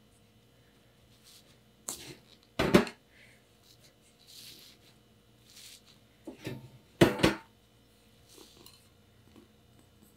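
Aluminium chiffon tube pan knocking and scraping on a wire cooling rack in two loud clattering bursts, as hands press the baked cake away from the pan's sides to release it; soft rustling of fingers on the cake's crust in between.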